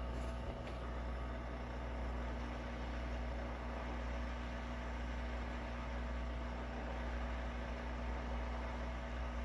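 Hot air rework station blowing steadily on a phone logic board, a low even hum with a hiss, heating the board at about 380–390 degrees to lift a shield. A couple of faint ticks about half a second in.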